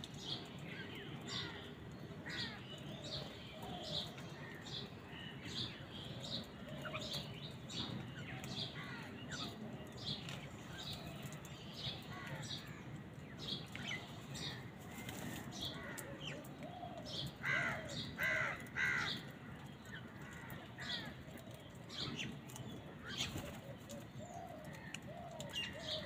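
House crows calling amid a constant chatter of short chirps from a flock of mynas. A louder run of harsh calls comes about 17 to 19 seconds in.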